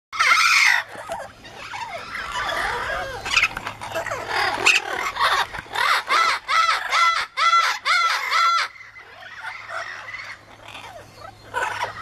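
Amazon parrots screaming and squawking: a loud scream at the start, then mixed squawks and chatter. Next comes a run of about six repeated arched calls, roughly two a second, ending with quieter calling near the end.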